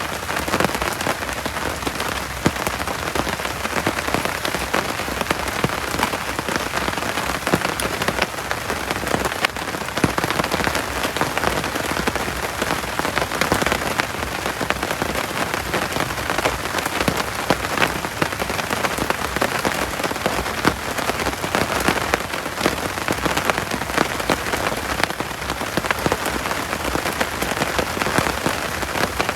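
Heavy tropical rain falling steadily, with many individual drops striking sharply and close throughout.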